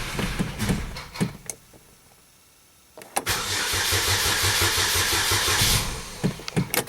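2007 Chevy Cobalt's 2.2 L Ecotec four-cylinder being cranked by its starter: a crank that dies away, a short pause, then a second crank of about two and a half seconds, followed by a few sharp clicks. The engine turns over and acts like it wants to start but does not catch: the no-start fault being chased.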